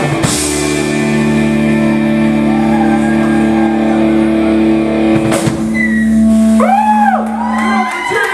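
Live rock band holding a final ringing chord on electric guitar with bass, a cymbal crash about five seconds in, before the chord cuts off near the end to close the song.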